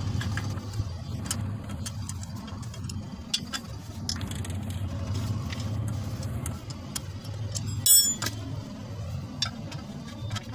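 12 mm socket wrench working the pressure-plate bolts of a Tata Ace Gold's clutch: scattered metal clicks and clinks over a steady low hum, with one sharp ringing metallic clink about eight seconds in.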